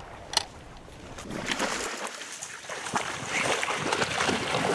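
Dry marsh reeds and grass rustling and crackling as something pushes through them, starting about a second and a half in. A single sharp click comes shortly before.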